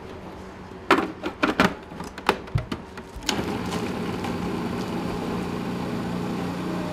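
A few sharp plastic clicks and knocks as the food processor is handled, then its motor starts about three seconds in and runs steadily with a low hum, the blade chopping leftover sponge cake into fine crumbs.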